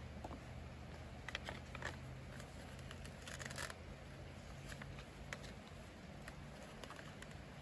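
Faint rustling and scattered light clicks as a Fox Proframe full-face mountain bike helmet is handled and pulled on over the head, with a short scraping rustle about three seconds in. A low hum runs underneath and fades out after about five seconds.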